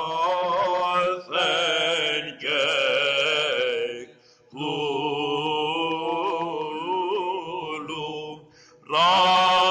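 Male Byzantine chanter singing a slow, melismatic Greek Orthodox hymn, with a steady low note held beneath. The melody breaks off twice for breath, about four seconds in and near the end.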